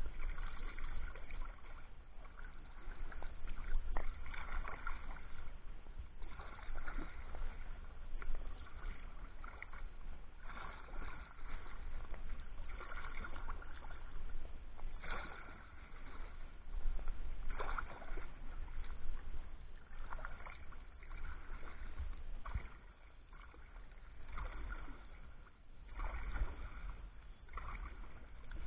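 Wooden Greenland paddle strokes in the water beside a sea kayak: a swishing splash about every two seconds, alternating side to side, over a steady low rumble.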